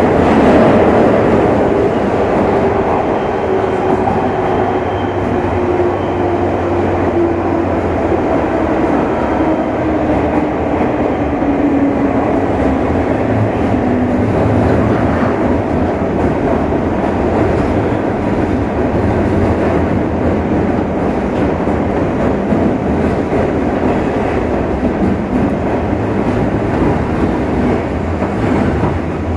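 JR 201 series electric train heard from inside its motor car: steady rumble of wheels on rail with clickety-clack, and a traction motor and drive gear whine that falls steadily in pitch through the first half as the train slows.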